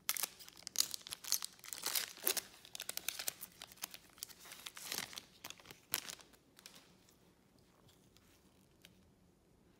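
Foil wrapper of a Panini Select baseball card pack being torn open and crinkled, a dense run of sharp crackles that stops about six seconds in; after that only faint soft ticks as the cards are handled.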